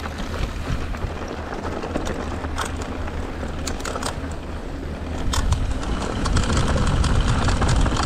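Mountain bike riding down a dirt and gravel trail: wind rumbling on the GoPro's microphone and tyres rolling over the dirt, with scattered sharp clicks and rattles from stones and the bike. The rumble gets louder about five seconds in.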